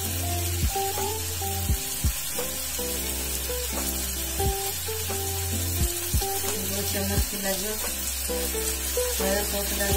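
Chopped vegetables sizzling in oil in a frying pan, with a steady hiss, under background music with a simple stepping melody.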